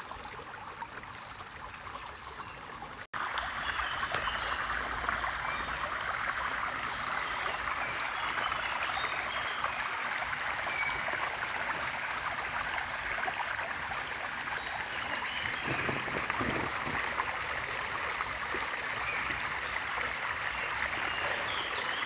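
Shallow forest stream running steadily, a continuous rushing and trickling of water; after a cut about three seconds in it is louder.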